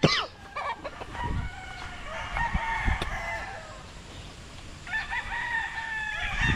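Gamecocks crowing, with several crows overlapping. One long crow comes about a second and a half in, and another starts near the five-second mark and carries on.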